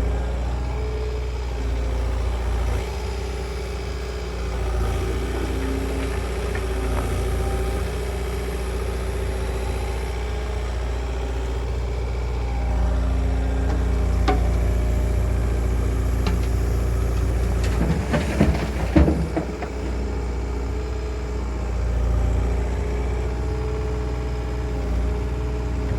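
Heavy-equipment diesel engine running steadily, with a short cluster of knocks and clanks about eighteen seconds in.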